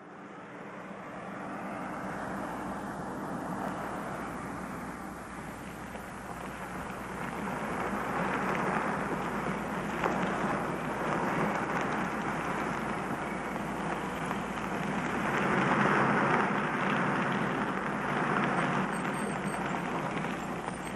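Car engine running with tyre noise on a rough road, growing louder as the car draws near and pulls up, loudest about three-quarters of the way through.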